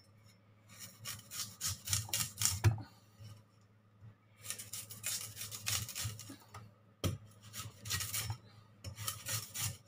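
A big cleaver blade scraping the skin off a kudzu root in quick repeated strokes, a dry rasping, in runs broken by a pause about three seconds in and a brief break near seven seconds.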